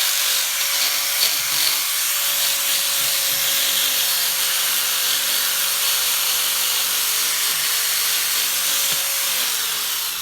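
Small electric power sanding tool abrading a carved wooden bird: a steady hiss of abrasive on wood over a steady motor hum, with the motor pitch dropping near the end as the tool slows down.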